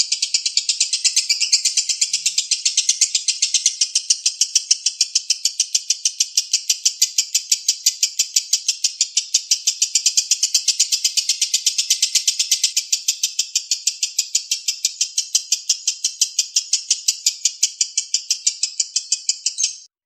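Lovebird ngekek in the 'konslet' style: one long, unbroken chatter of rapid, high-pitched 'kek kek kek' notes, about five a second. It breaks off abruptly near the end.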